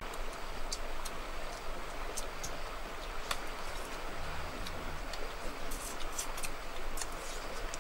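Steady outdoor background hiss with scattered faint, sharp high clicks, more of them in the second half.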